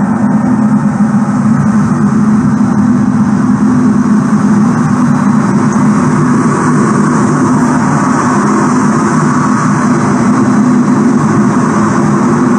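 Steady, loud roar of a jet engine and rushing air heard inside the cockpit of an F-16 fighter jet in flight.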